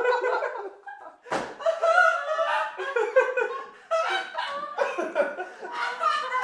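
People laughing and chuckling, with a single thump about a second and a half in.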